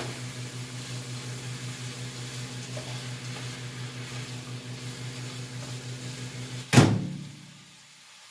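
Microwave oven running with a steady, faintly pulsing hum. About seven seconds in it stops with a loud clunk.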